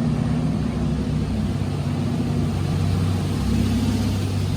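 Car engine running at a steady pace with road noise, a continuous low drone with a steady hum.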